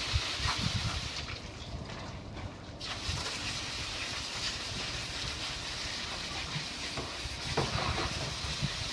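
High-pressure hose spray nozzle hissing as it jets water onto the roots of bunched salad turnips. The spray cuts out about a second in and starts again near the three-second mark.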